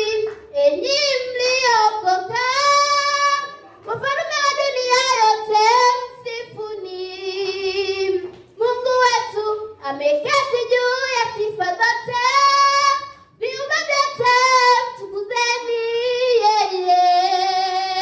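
A girl's solo voice singing into a handheld microphone, unaccompanied. She sings sustained, wavering held notes in phrases, with short breaks for breath between them.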